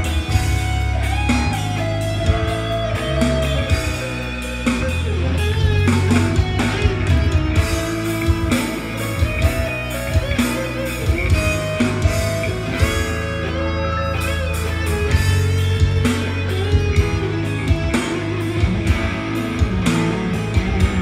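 Electric guitar playing a lead solo, with held notes that bend and waver between quicker runs, over a rock backing track of drums and bass.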